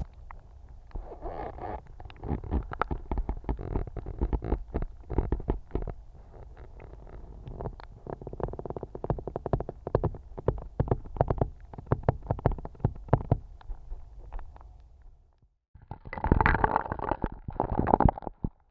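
Ice cracking and popping in water, heard underwater through a hydrophone: a dense run of sharp crackling clicks over a low rumble. After a short gap near the end comes a louder burst of cracking.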